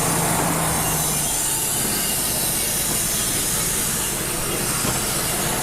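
Wood-Mizer LT35 portable band sawmill running, its engine and band blade making a steady, loud hiss through a soft maple log. A steady low hum drops out about a second in.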